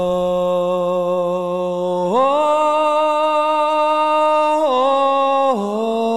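Background music: a slow sung chant of long held notes. The pitch rises about two seconds in and steps back down twice near the end.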